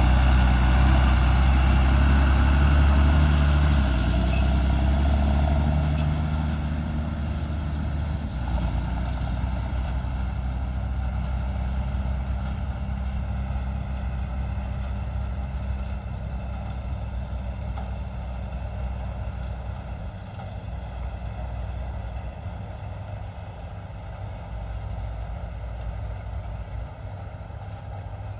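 Large diesel engine of harvest machinery running steadily. It is loud at first, drops in level about a quarter of the way in, and then grows gradually fainter.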